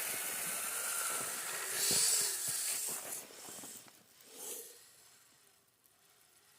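Kyosho Blizzard RC snowcat's electric motor and tracks churning through deep snow: a hissing rush that swells about two seconds in, then dies away to near quiet over the last couple of seconds.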